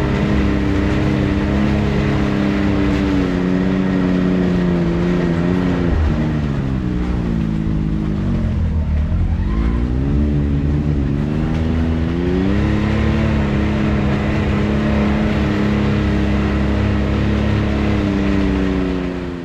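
Can-Am X3 side-by-side engine running under way on a rough trail. It holds a steady pitch, eases off about six seconds in, dips lowest around nine seconds, then climbs back up and settles again.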